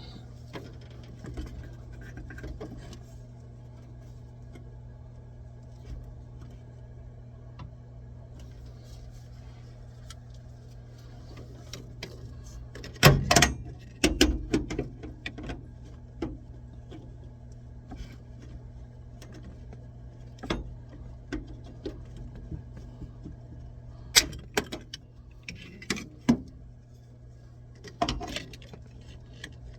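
Metal clinks, clatters and knocks of tools and fittings being handled during plumbing work, over a steady low hum. The loudest clatter comes about halfway through.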